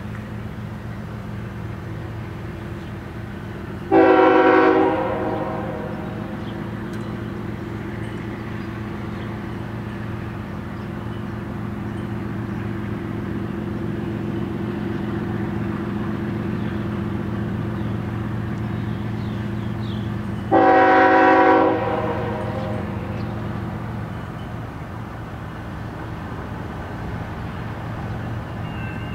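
Diesel freight locomotives approaching slowly, their engines making a steady low drone that grows a little louder as they near. The locomotive horn sounds two short blasts of about a second each, one about four seconds in and one about twenty-one seconds in.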